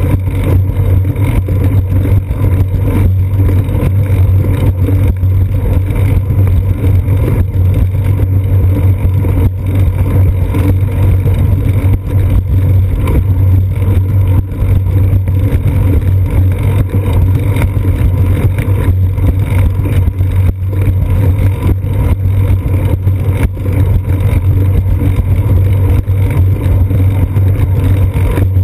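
Steady low droning rumble of a bicycle rolling along a concrete sidewalk, picked up through a seat-post-mounted GoPro Hero 2: the bike's rolling and frame vibration carried into the camera, with many small knocks as it crosses the sidewalk joints.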